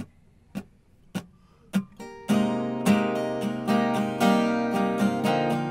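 Acoustic guitar: four short muted taps about half a second apart count in, then strummed chords start a little over two seconds in and carry on.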